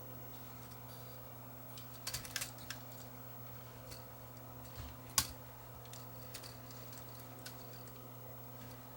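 Small clicks and taps of a screwdriver and tiny screws on a camcorder's tape mechanism during reassembly. A cluster of clicks comes about two seconds in and one sharper click a little after five seconds, over a steady low hum.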